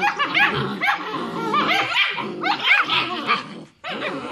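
Six-week-old German Shepherd puppies play-fighting: a rapid string of high-pitched yips and small barks, breaking off briefly near the end.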